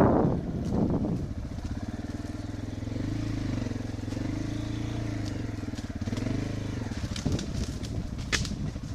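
Enduro motorcycle engine: a burst of revs at the start dies down within about a second. It then runs at low, fairly steady revs with a slight rise and fall. A few sharp clicks or knocks come near the end.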